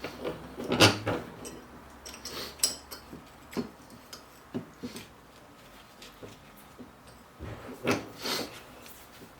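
Irregular knocks, clicks and short scraping rubs of tools and a workpiece being handled, loudest in a cluster about a second in and again just before eight seconds.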